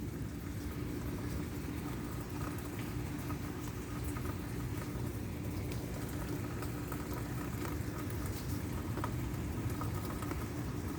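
Light rain pattering steadily, with a faint steady hum underneath.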